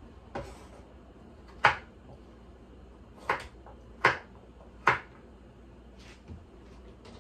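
Kitchen knife chopping carrots on a wooden cutting board: about five sharp chops at uneven intervals in the first five seconds, then a few lighter taps.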